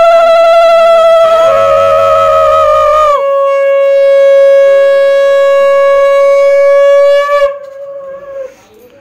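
Two conch shells (shankha) blown in long, steady blasts. One holds until about three seconds in, while a second, lower-pitched conch joins at about a second and a half and holds until about seven and a half seconds, then dies away.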